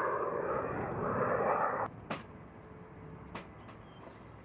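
Steady jet aircraft noise on a flight line, cut off suddenly about two seconds in. Two sharp clicks follow in the quieter remainder.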